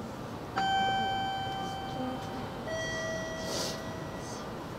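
A two-tone chime, a higher ring about half a second in and a lower one about two seconds later, each dying away, over the steady running noise of the train. A short hiss comes near the middle.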